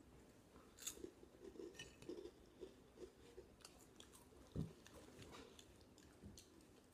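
Faint chewing of crunchy hot Cheetos: a scatter of soft, irregular crunches, with one louder thump about four and a half seconds in.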